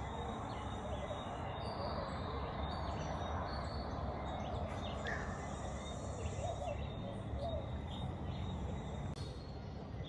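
Steady natural background hiss with a few faint, scattered bird chirps, about five seconds in and again around six and a half and seven and a half seconds.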